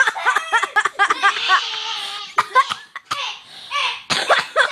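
Kids laughing hard and coughing, in quick repeated bursts.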